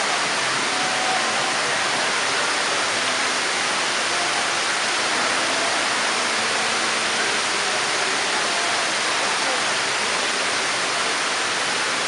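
Water cascading down a multi-storey indoor waterfall wall, a steady, even rushing hiss.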